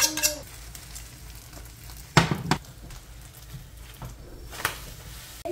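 Beaten eggs with spinach and peppers sizzling in oil in a non-stick frying pan, a steady frying hiss. A brief sharp clatter of the pan being handled about two seconds in, and a light click near the end.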